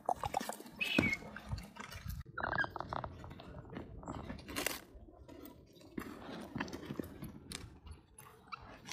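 Close-up wet clicking and smacking noises, with one short high squeak from a baby macaque about two and a half seconds in.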